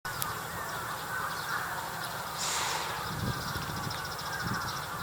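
Birds calling, with crows cawing among scattered chirps and a rapid repeated trill through the second half.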